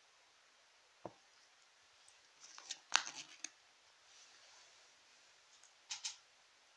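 Light plastic clicks and crinkles from handling a Kinder Joy's plastic tray and its small plastic spoon: a single tap about a second in, a quick cluster of clicks around three seconds in, and two more near the end.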